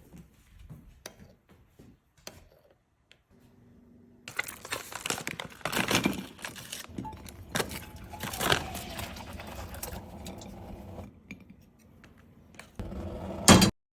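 Kitchen handling sounds of dishes and utensils: scattered small clicks and clinks, then a busier stretch of handling noise with a few sharp knocks, and a short loud sound near the end that cuts off suddenly.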